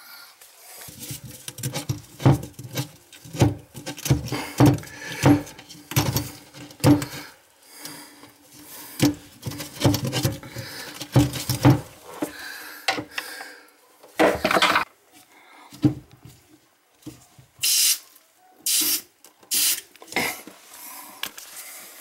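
Irregular knocks, clinks and rubbing of hands and tools working on a sink's shutoff valve and supply line, which is clogged with debris. A few short hissing bursts come near the end.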